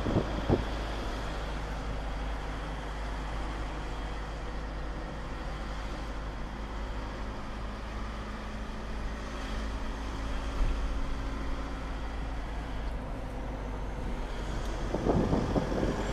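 Vehicle engine and road noise heard from inside the cabin while driving slowly, a steady low hum. It turns louder and rougher near the end.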